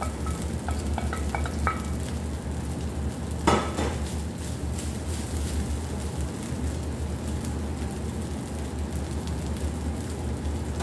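Minced meat and rice sizzling steadily in a frying pan on a gas burner. A few light clinks in the first two seconds as rice is scraped from a glass bowl with a wooden spoon, and a single sharp knock about three and a half seconds in.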